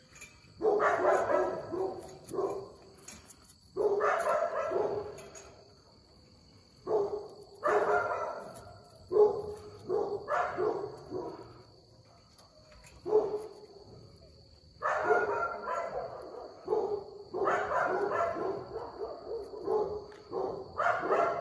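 Dogs barking in repeated bouts of several barks each, separated by pauses of one to two seconds.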